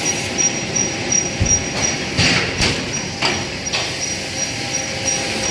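PP woven bag cutting and sewing machine running: steady mechanical clatter with a high, regularly pulsing whine and several sharp knocks.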